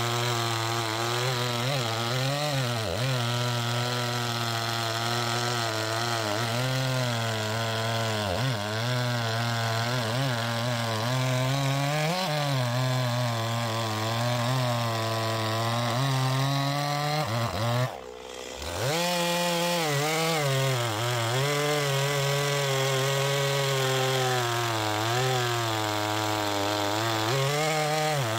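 Stihl MS 260 two-stroke chainsaw running at high throttle while cutting through a log, its engine pitch dipping and recovering again and again as the chain bites into the wood. The sound cuts out for about half a second roughly two-thirds of the way through, then picks up again.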